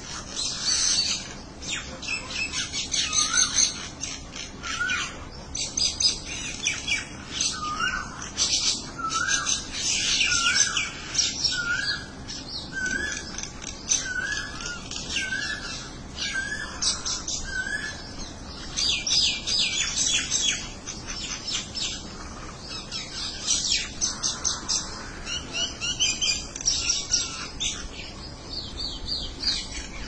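A group of common mynas chattering: dense, continuous chirps and squawks, with a short rising whistle repeated over and over through the middle.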